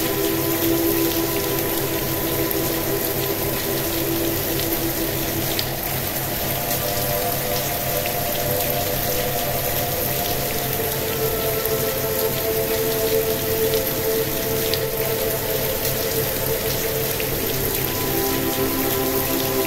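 Steady recorded rain with scattered raindrop ticks, mixed with a soft sustained synth drone whose held chords shift slowly a few times, over a low pulsing hum.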